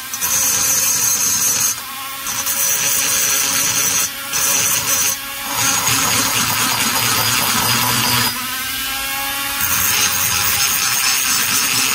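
A high-speed rotary grinding tool running with its bit cutting into the intake port of an Echo CS-670 chainsaw cylinder, porting the two-stroke cylinder. The grinding is steady and high-pitched, dipping briefly a few times as the bit eases off the metal.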